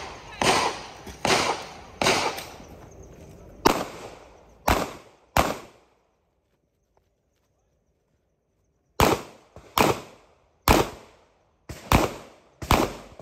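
Glock 19 9 mm pistol fired in a string of single shots, roughly a second apart. There is a gap of about three seconds with almost no sound, then the firing resumes at the same pace.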